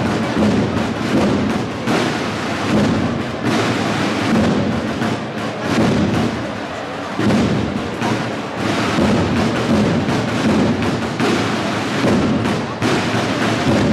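Cornet-and-drum band (banda de cornetas y tambores) playing a Holy Week processional march: cornets over a steady, regular drum beat.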